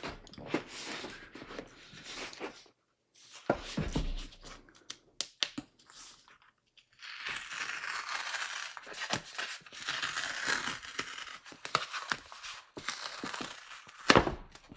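Packaging being unwrapped: plastic wrapping crinkling and tearing, with scattered clicks and a long stretch of rustling, then one sharp knock near the end.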